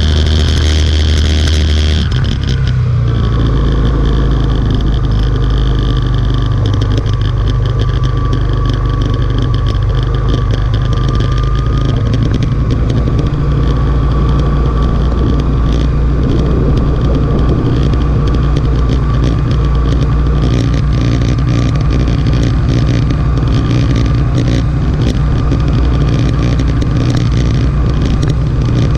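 Motorcycle engine running steadily under way, heard from a camera mounted on the bike, with road and wind noise. The engine note changes about two seconds in.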